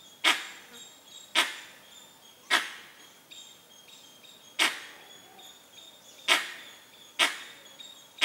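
Tiger lapping water from a muddy pool: wet, sharp slaps with a short splash after each, one every second or two. Faint high chirping underneath.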